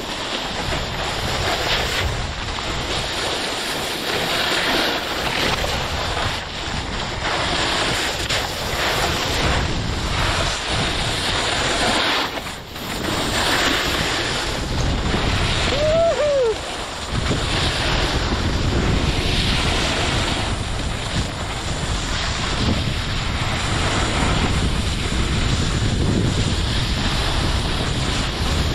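Wind buffeting the microphone and skis hissing over snow while skiing downhill, swelling and easing every second or so with the turns. About halfway through there is one brief high squeak.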